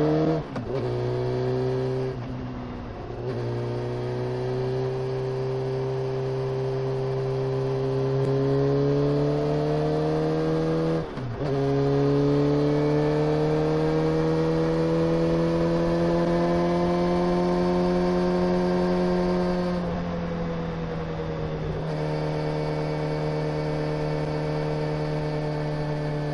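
Honda CBR motorcycle engine under way, its pitch climbing slowly as it pulls, with short breaks for gear changes, the clearest about eleven seconds in. The level drops near twenty seconds in and the engine runs on a little lower after that.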